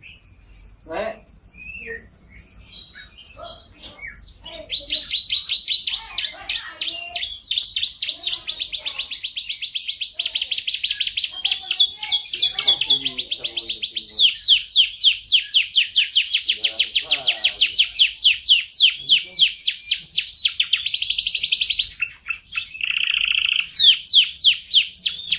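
Domestic canary singing a long, unbroken song of rapid trills, fast runs of repeated high notes that switch from one trill type to the next every second or two, with a lower, buzzy trill shortly before the end.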